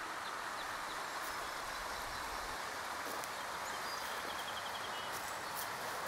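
Steady rush of water from a nearby stream and small waterfall. A few light crackles of footsteps on dry leaves and grass come through, and a bird gives a short quick trill a little past the middle.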